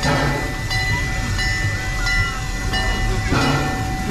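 Steady machine hum over a low rumble, broken by two brief rushes of noise, one at the start and one a little past three seconds in.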